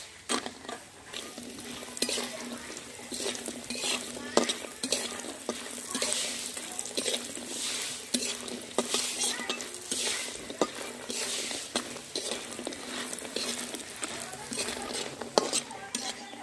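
Potato pieces sizzling in hot oil in a wok, with a metal spatula stirring them and repeatedly scraping and clinking against the pan.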